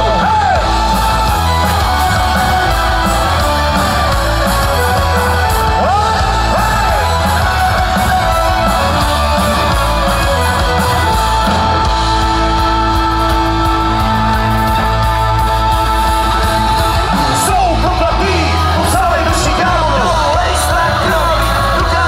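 Rock band playing live through a PA, with loud bass and drums throughout. Singing comes in near the start and again near the end, with long held notes in between.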